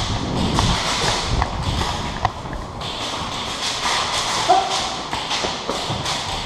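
Running footsteps with gear and clothing rustling and knocking, in a quick irregular rhythm of a few steps a second.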